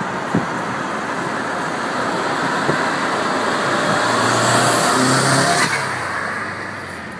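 Subaru Impreza GC8's flat-four exhaust heard from a car driving alongside, over steady road and wind noise. It grows louder as the Subaru pulls up and passes, loudest about five seconds in, then eases off.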